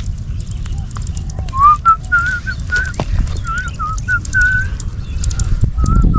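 A person whistling a short wavering tune, about a dozen notes starting a second and a half in, over the rustle and snap of plant stems being picked by hand.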